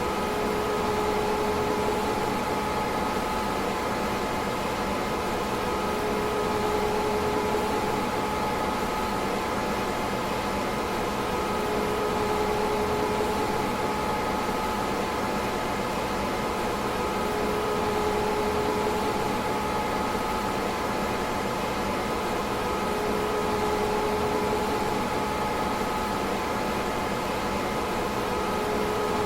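PDP-11/44 minicomputer running: the steady hum and airy rush of its cooling fans and power supply, with a few steady tones. A slightly higher tone swells in and out about every six seconds.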